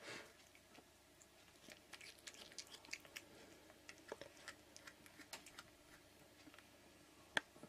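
Faint, irregular crunching and small clicks of a cat chewing a mouse it has caught, with one sharper click near the end.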